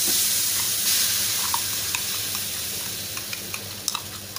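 Blended mango pulp poured into hot oil in an aluminium kadai, sizzling. The sizzle fades over the few seconds, with scattered pops and crackles growing more frequent near the end.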